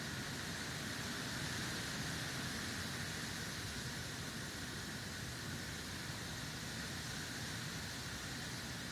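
Steady outdoor ambient noise during a snowstorm: an even hiss with a low rumble underneath, unchanging throughout.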